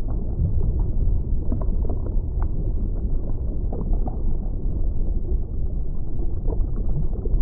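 Underwater ambience sound effect: a steady, deep, muffled rumble with faint scattered bubbling.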